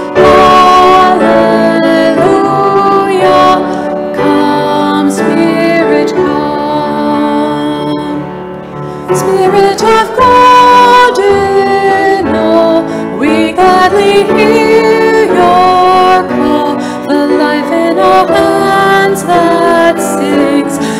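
A hymn sung by women's voices to piano accompaniment, in slow held notes, with a short lull about eight seconds in before the singing picks up again.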